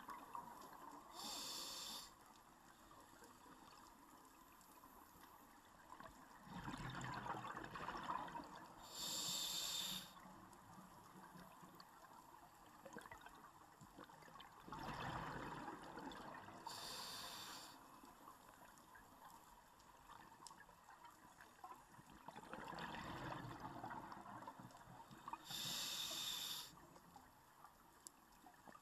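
A scuba diver breathing through a regulator underwater. The breaths come in slow cycles about eight seconds apart, each a rush of exhaled bubbles and a short high hiss of the regulator delivering the next breath.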